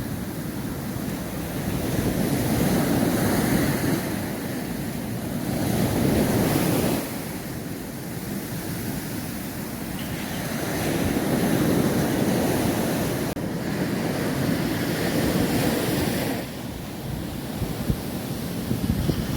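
Sea waves breaking on a sandy beach, the surf swelling and ebbing every four or five seconds, with wind buffeting the microphone.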